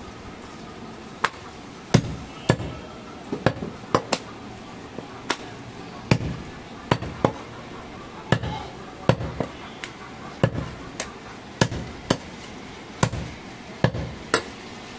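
Heavy chopper knife striking goat meat on a thick wooden chopping block: a run of sharp, irregular chops, one or two a second, with some quick doubles.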